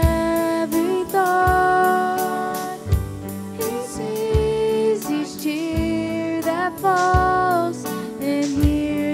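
Worship song: a singing voice holding long notes with vibrato over an instrumental backing with a steady beat.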